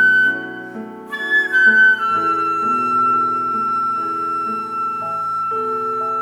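Flute playing a slow melody: a phrase ends, a new one begins about a second in, stepping down to a long held high note over a lower, slowly changing accompaniment.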